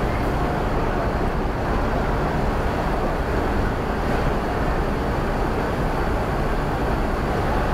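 Steady, loud diesel rumble of buses running on a ferry's enclosed vehicle deck, with one coach creeping forward between the parked buses.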